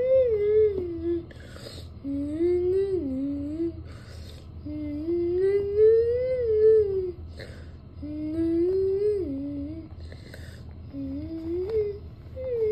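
A person humming a slow, wordless melody in gliding phrases a couple of seconds long, with audible breaths between the phrases.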